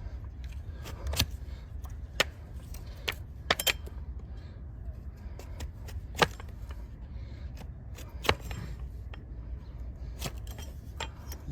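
Hoof knife cutting into a donkey's hard, overgrown hoof horn: sharp cracks and snaps at irregular intervals, about one every second or two, over a steady low rumble. The horn sounds hard as it is cut.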